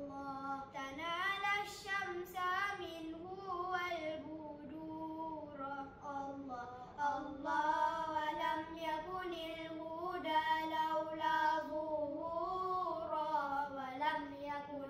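Boys singing selawat, Islamic devotional verses in praise of the Prophet, with no instruments: long held notes that bend and ornament, broken by short breaths.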